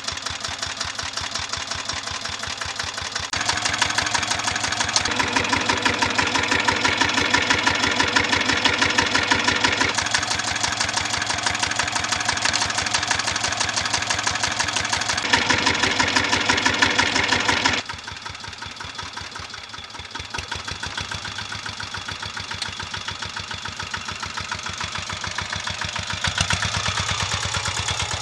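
Small Hatz diesel engine of a garden-railway field locomotive running with a steady rapid chug of firing pulses. It is louder from a few seconds in until about two-thirds through, then drops back to a quieter run.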